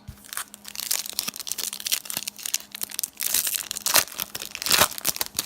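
Trading-card pack wrapper crinkling and crackling as it is handled, in a run of irregular crackles that grows loudest about three to five seconds in.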